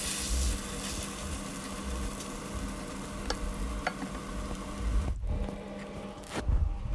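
Omelette sizzling as it fries in a nonstick pan, with a couple of light spatula taps; the sizzle cuts off abruptly about five seconds in.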